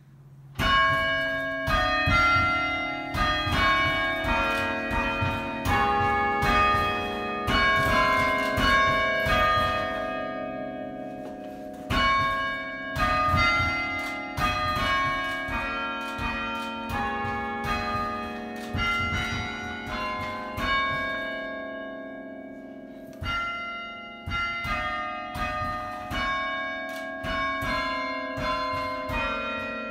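Bells ringing a tune: a steady run of struck notes, each ringing on, with two short pauses, about a third and three-quarters of the way through.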